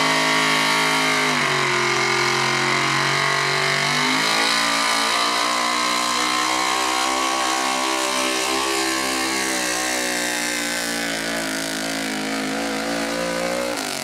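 6200 outlaw-class 4x4 pulling truck's engine running at high revs under full load as it drags a weight-transfer sled. The pitch sags about a second and a half in, then holds high and slowly bogs down as the sled loads it. The engine note drops away sharply at the very end as the pull finishes.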